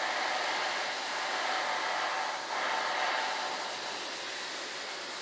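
A steady hiss of rushing air with no distinct pitch, easing off a little after about four seconds.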